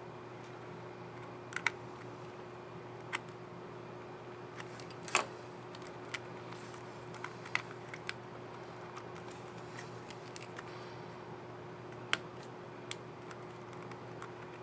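Scattered small plastic clicks of a laptop keycap and its scissor mechanism being handled, snapped into place and pressed, some in close pairs, with the loudest about five seconds in. A steady faint hum runs underneath.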